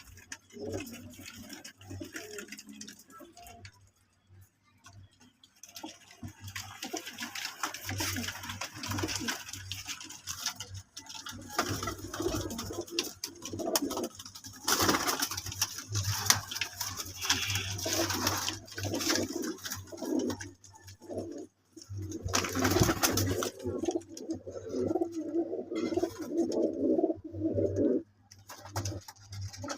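Sialkoti breeder pigeons cooing repeatedly, with several brief bursts of rustling noise around the middle.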